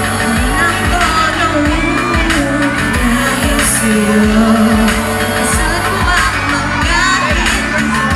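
A woman singing a pop ballad live into a handheld microphone over a backing track with a steady beat.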